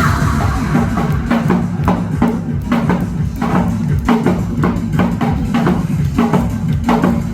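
Janggu, the Korean hourglass drum, struck in a quick regular run of sharp strokes, about three a second, over loud recorded backing music with a steady bass line.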